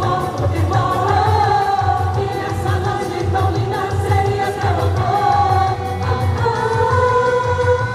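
Quadrilha junina song: voices singing together over a steady, pulsing bass beat.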